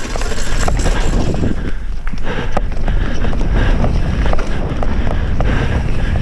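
Mountain bike running fast down a dirt trail: a steady rush of wind on the microphone and tyre noise, with a stream of sharp rattles and clicks from the bike over the bumps.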